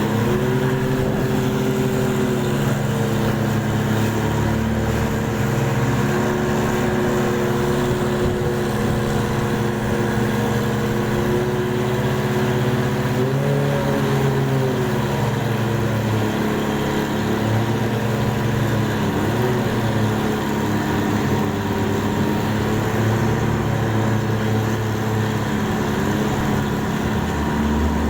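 Engine of a mud-suction dredge boat running steadily, its pitch dipping and rising slightly a few times.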